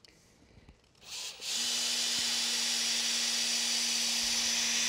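Cordless drill boring into a wooden stair rail: after a brief blip of the trigger, the motor starts about a second and a half in and runs steadily at one speed, a constant hum with a high whir.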